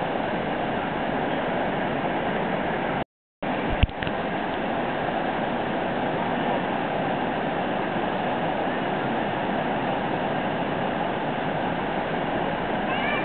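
Steady rush of river water pouring over a low weir and churning in the whitewater below it. About three seconds in the sound cuts out completely for a moment, then a brief click follows.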